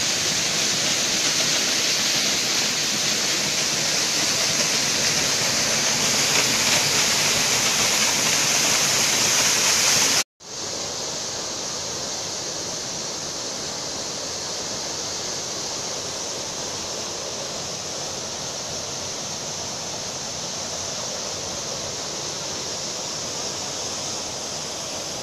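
Waterfall's steady rush of falling water. About ten seconds in it cuts out for a moment, then returns a little quieter.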